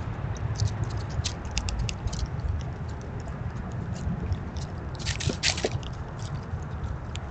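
Black squirrels foraging right at the microphone: scattered small clicks and crackles, with denser bursts of crunching about five seconds in, over a steady low rumble.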